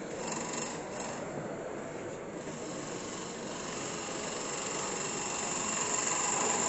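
Wood lathe turning a wooden blank while a hand-held gouge cuts it: a steady rushing, scraping hiss of shavings coming off, growing louder toward the end.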